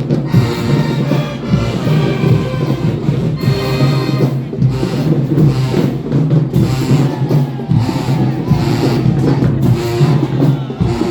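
High school marching band playing together, with drums beating under the pitched instruments, during its warm-up.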